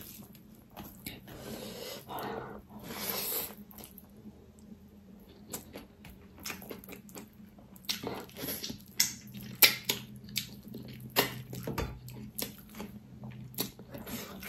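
Close-up eating sounds: wet chewing and lip smacks while eating pork trotter with rice by hand, with many short sharp clicks that come more often and louder in the second half.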